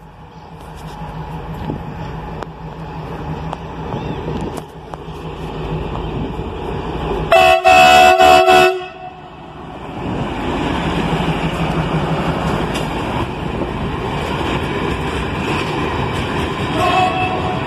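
CRRC Qishuyan CDD5A1 diesel-electric locomotive approaching with its engine running louder as it nears. It sounds its horn loudly for about a second and a half as it passes. Then its loaded hopper wagons roll by with a steady noise of wheels on rail.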